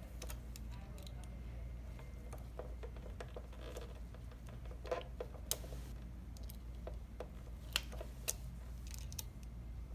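Scattered light metallic clicks and ticks of an Allen key and fingers working the screws inside a scooter's metal handlebar joint housing, over a low steady hum.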